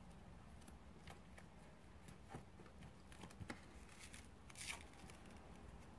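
Near silence with a few faint soft ticks of handling as sponge jelly cubes are pushed into slime in a clear plastic container.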